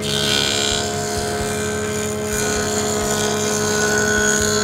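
PT107 planer-thicknesser running as a jointer, its cutter block planing the edge of a hardwood board fed along the fence. It makes a steady machine hum with a loud cutting hiss over it.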